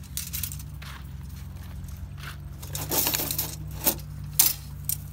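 Small motorcycle engine idling with a steady low hum, over which come a series of sharp metallic clinks and rattles, loudest near the end.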